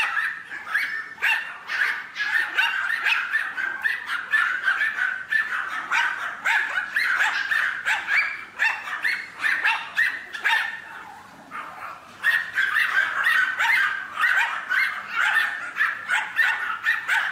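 A crowd of Pomeranians yapping and barking at once, many short, high, overlapping barks in a continuous chorus that dies down briefly about two-thirds of the way through, then picks up again.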